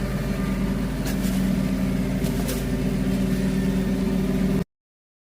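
An engine running steadily at a constant speed, with a few faint clicks over it; the sound cuts off suddenly near the end.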